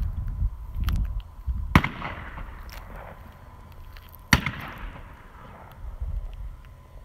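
Two gunshots, most likely shotguns on the clay-target range, about two and a half seconds apart, each a sharp crack with a short echoing tail. A low rumble sits underneath.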